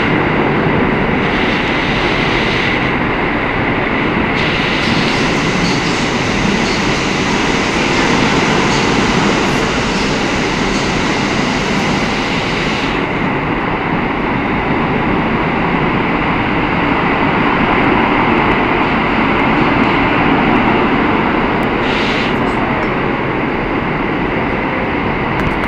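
Running noise of an R160 subway car heard from inside the car: a loud, steady rumble of the train moving through the tunnel, with a faint steady high whine above it.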